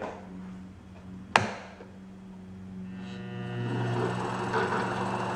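Lathe motor running with a steady hum, a single sharp click about a second and a half in. From about three seconds in the sound grows louder and rougher as the skew chisel begins cutting the spinning insulation foam.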